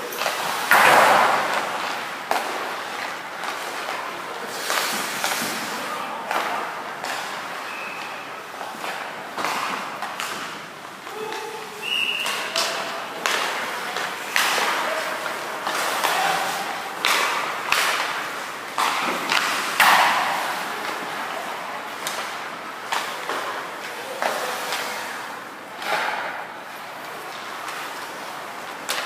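Ice hockey practice on an indoor rink: skates scraping and carving on the ice, with repeated sharp knocks and thuds of pucks and sticks against the ice, boards and glass, the loudest about a second in and again about two-thirds of the way through.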